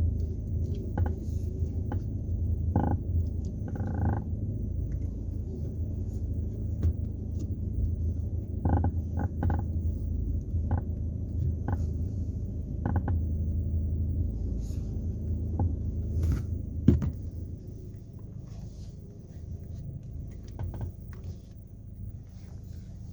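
Electric power steering of a 2018 Chevrolet Onix Joy clicking and cracking as the steering wheel is turned: short, irregular clicks a second or a few apart, the loudest about seventeen seconds in, over a steady low hum. The cracking is a fault in the electric steering that has persisted even after the steering unit was replaced.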